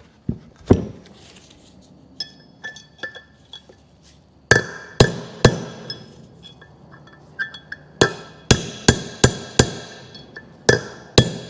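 A hammer strikes a steel pin punch to drive a bearing cup out of a Toyota Hilux front wheel hub, and the metal rings after each blow. The blows come in uneven bursts of a few strikes each, with light taps in between.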